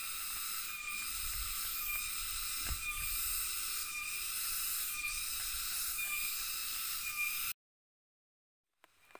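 A steady high-pitched buzzing drone with a faint pulse about once a second, cutting off suddenly near the end.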